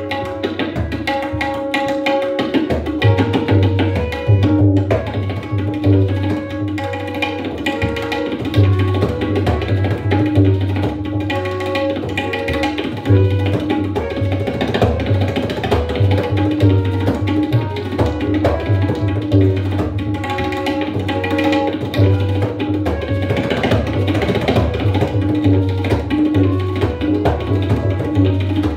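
Tabla solo in jhaptaal, the ten-beat cycle: dense, fast strokes with deep bass strokes from the bayan, played over a repeating melodic accompaniment (lehra).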